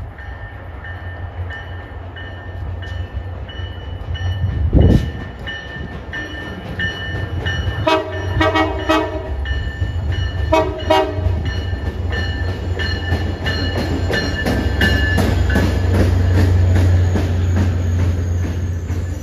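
MBTA commuter rail train approaching and rolling past, its low rumble building as it nears; about eight seconds in its multi-note horn sounds a longer blast, then a shorter one a couple of seconds later. A brief loud sound comes about five seconds in, and the wheels clatter over the rail joints as the bilevel coaches go by.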